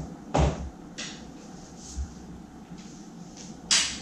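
Someone moving about and handling things: a heavy knock with a low thud about half a second in, lighter knocks after it, and a short loud rustle near the end as the person walks back in.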